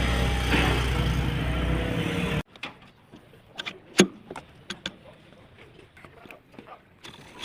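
A machine running with a steady low drone that stops abruptly about two and a half seconds in, followed by scattered metal clinks and knocks of tools on engine parts.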